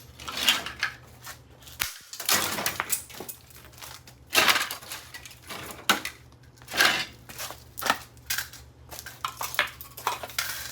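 A Gentex ST24-30WR fire alarm being struck again and again on concrete, about ten sharp cracking blows at irregular intervals of roughly a second, with a longer crunching one about two seconds in.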